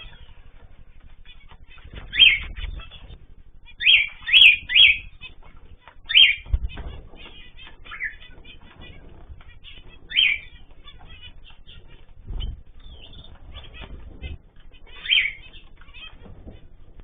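Ornamental pet birds giving short, sharp chirps every second or two, once three in quick succession. Low fluttering sounds of wings flapping come in between.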